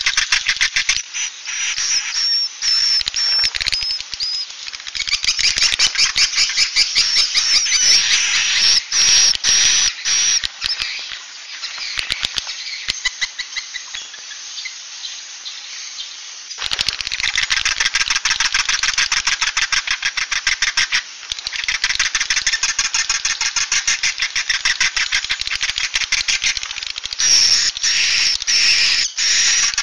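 Recorded swiftlet calls, the 'suara inap' roosting lure used in swiftlet farming: dense, rapid chittering and clicking with thin high chirps. A softer stretch in the middle ends abruptly when the full chorus comes back about 16 seconds in.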